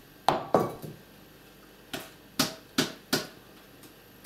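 Metal box grater being knocked repeatedly to shake out water and carrot shreds while it is cleaned: about six or seven sharp knocks, unevenly spaced, with a short metallic ring after each.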